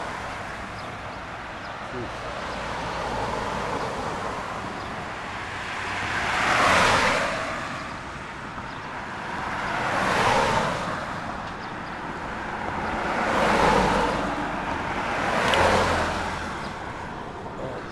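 Cars passing by one after another on a street: four passes, each rising and fading, over steady traffic noise.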